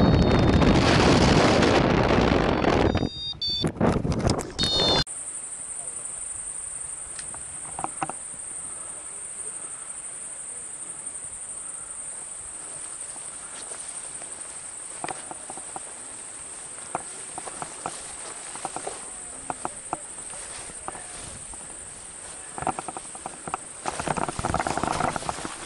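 Wind buffeting the microphone of a camera in paraglider flight for about five seconds, cutting off abruptly. After the cut there is a steady high-pitched whine with scattered faint clicks and faint voices near the end.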